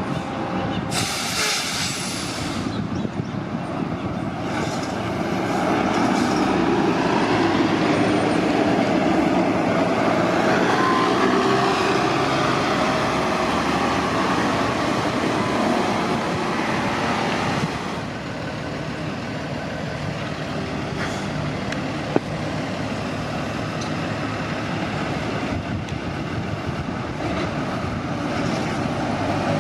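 City transit buses running at a bus terminal. An air-brake hiss comes about a second in, then a bus engine grows louder for about ten seconds before dropping off suddenly, with a single sharp click a few seconds later.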